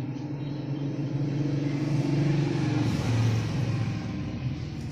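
A vehicle engine running with a steady low hum, its pitch dipping briefly about three seconds in.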